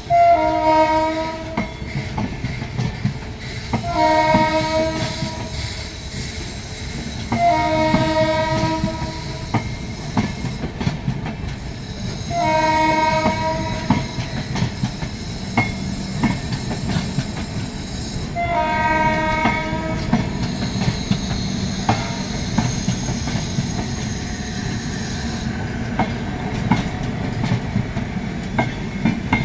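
Rajdhani Express coaches rolling past, their wheels clicking over the rail joints in a steady clickety-clack under a constant rumble. A train horn sounds five blasts of about a second and a half each, spaced a few seconds apart, the last about two-thirds of the way in.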